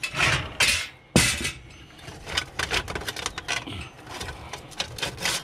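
Sheet-metal ash bucket of a charcoal kettle grill being handled: two short scraping rushes at the start, a sharp metal clank about a second in, then a run of light clicks and rattles.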